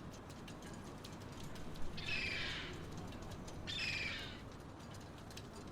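A large bird gives two harsh, cawing calls about a second and a half apart, over a steady low harbour background with faint scattered ticks.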